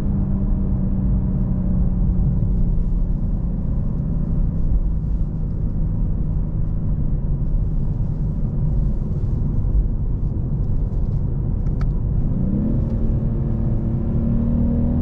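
BMW 840i's twin-turbo inline-six and tyre rumble heard from inside the cabin, the engine low and steady as the car slows. About twelve seconds in, after a single sharp click, the engine note rises as the car accelerates again.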